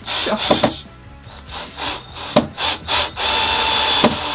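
Cordless drill-driver driving a screw through a cupboard door panel for a knob, running in short spurts, then a steady run of about a second starting about three seconds in.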